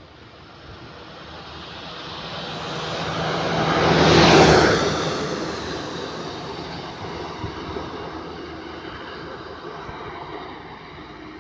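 A truck passing on the road: engine and tyre noise build up, are loudest about four seconds in, then fade slowly as it drives away.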